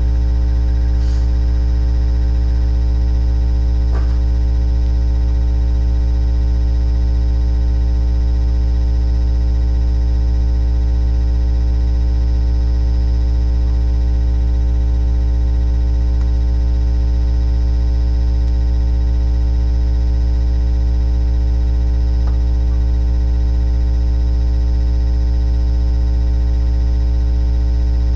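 A loud, steady low hum with many overtones that does not change at all, with a few faint clicks scattered through it.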